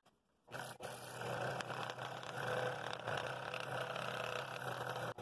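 Scroll saw running, its reciprocating blade cutting a bevelled ring out of a wooden bowl blank. It starts about half a second in and then runs steadily with a constant low hum.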